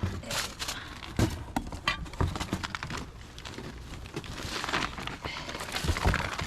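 Rustling and crinkling with a few sharp knocks, as of items being handled and moved.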